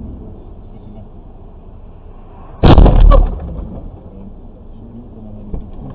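A single loud crash of a vehicle collision about two and a half seconds in, heard from inside a stopped car. A heavy, distorted bang lasting under a second, then a fading rumble.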